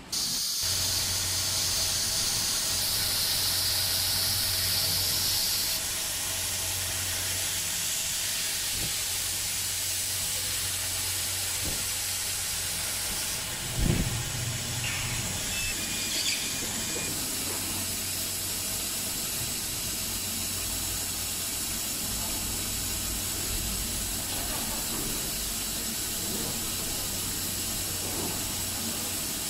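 CO2 laser cutting machine at work: a steady hiss of its air-assist blower and exhaust fan over a low hum. There is a short knock about halfway through.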